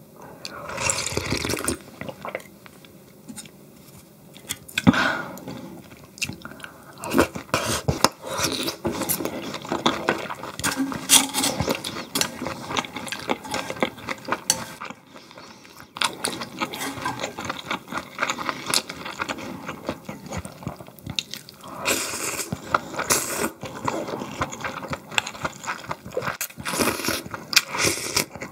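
Close-miked eating of marinated pork ribs and cold broth noodles: chewing, with frequent small wet clicks and smacks and a few longer noisy stretches, twice.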